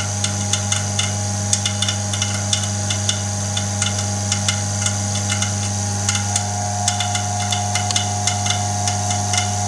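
Homemade fusor rig running, its vacuum pump and high-voltage supply together giving a steady electrical hum with a high whine over it, broken by irregular sharp ticking clicks several times a second. One of the middle tones shifts in pitch about six seconds in.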